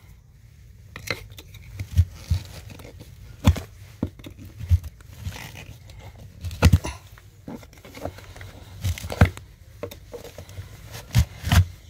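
Hefty flat-blade screwdriver scraping and knocking against a plastic irrigation valve box lid as it is pried off. The clicks and scrapes are irregular, every second or two.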